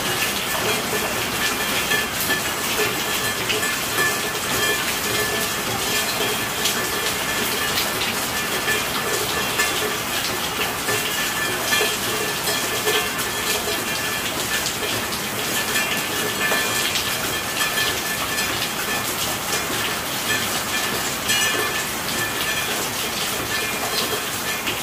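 Steady rainfall: an even hiss thick with the ticks of individual drops striking a surface.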